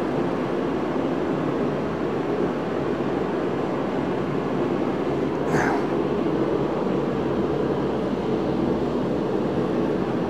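Steady rushing noise of a shop heater running, with a short metallic clink about halfway through as the crankshaft is handled over the engine case.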